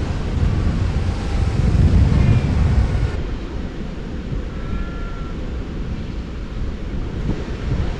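Wind buffeting the microphone over the wash of Atlantic surf, gustier in the first few seconds. A couple of faint, short bleating calls from Cape fur seals come through about two and five seconds in.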